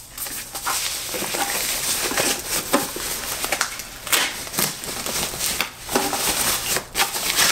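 Packaging wrap crinkling and rustling as a rear speaker is unwrapped by hand, a continuous stream of irregular crackles.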